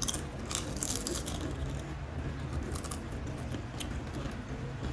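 Crisp, irregular crunching of thick ghost pepper potato chips being bitten and chewed, over a steady low hum.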